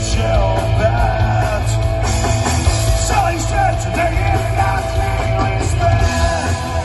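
Live rock band playing through a PA system: electric guitars over bass and drums, with a melodic line bending up and down in pitch.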